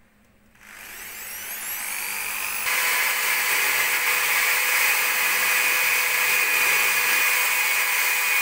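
Corded electric drill spinning up with a rising whine about half a second in, then running steadily as it bores a hole through a short length of PVC pipe.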